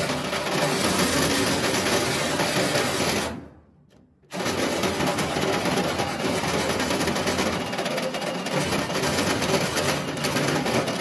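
Cordless power tool grinding away the steel firewall around the brake booster opening to enlarge the hole: a steady whirring grind that stops a little over three seconds in and starts again abruptly under a second later.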